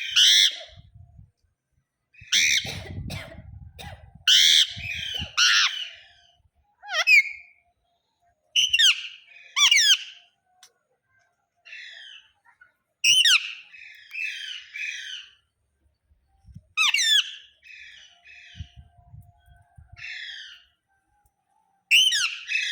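Parrot screaming: loud, harsh squawks in repeated short bouts with pauses between them.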